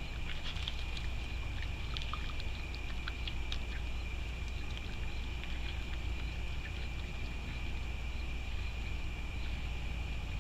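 Raccoon feeding at a dish, with scattered small clicks and crunches, mostly in the first few seconds. Under it runs a steady low rumble and a steady high whine.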